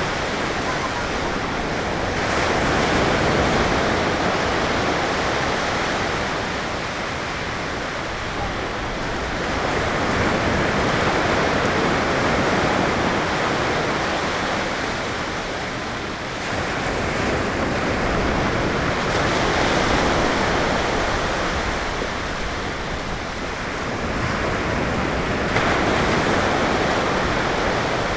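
Ocean surf breaking on a sandy beach: a continuous wash of waves that swells louder every six to eight seconds or so as each wave breaks.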